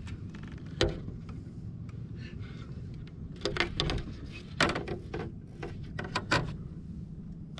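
Knocks and clunks of gear being handled on a fishing boat, over a steady low hum. There is one sharp knock about a second in, a cluster of them around the middle, and a couple more near the end.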